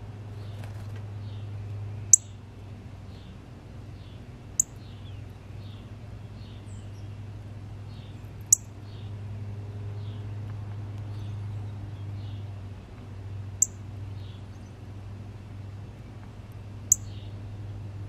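Small songbirds calling: a steady run of faint, short down-slurred notes about two a second, cut by five loud, sharp, high chip notes spaced a few seconds apart, over a low steady hum.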